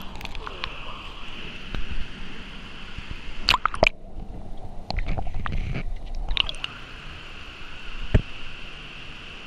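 Water gurgling and sloshing over a steady hiss, with scattered sharp clicks and knocks. There is a cluster of clicks a little past three seconds in and a single louder knock about eight seconds in.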